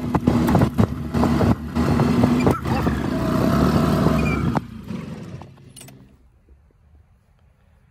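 Golf cart driving along a paved cart path: its motor running with rattles and knocks from bumps, fading out about five seconds in to quiet.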